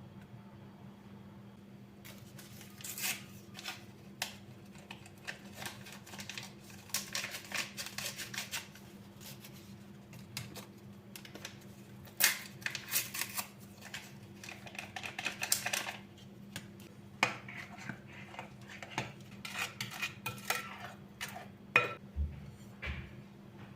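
Dishes and cutlery clinking and clattering in irregular bursts of short knocks, some ringing briefly, over a steady low hum.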